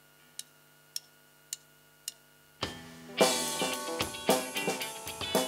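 Four evenly spaced count-in clicks from the drummer, about half a second apart, over a faint steady hum; then a live rock band of guitar, keyboards, bass and drum kit comes in about two and a half seconds in, with the full kit hitting hard about half a second later.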